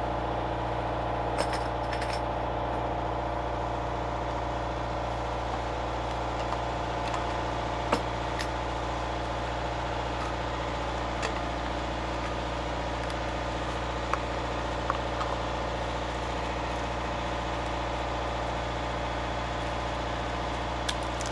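A boat's engine drones steadily, heard inside the cabin, with a few sharp clicks and knocks as a plastic case, a stainless travel mug and plastic containers are handled.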